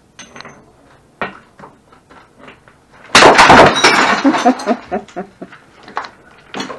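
A golf club swing smashes an object, with one loud crash about three seconds in. The pieces go on clinking and scattering for a couple of seconds. A light tap comes earlier, about a second in.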